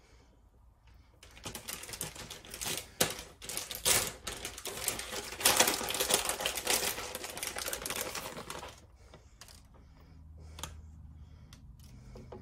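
Plastic bag of shredded cheese crinkling and rustling in a run of quick clicks as it is handled and opened, loudest in the middle. It dies down a few seconds before the end, leaving faint crackles and a low hum.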